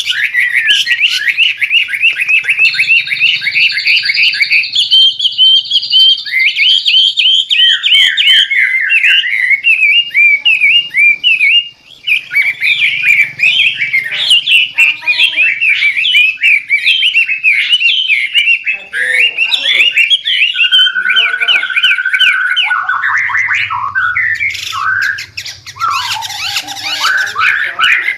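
White-rumped shama (murai batu) singing without pause: loud runs of fast repeated whistled notes and trills that change phrase every few seconds, with a held whistle a little past the middle.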